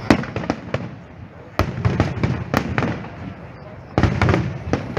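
Aerial firework shells bursting overhead in irregular sharp bangs, with a rapid cluster of reports about four seconds in.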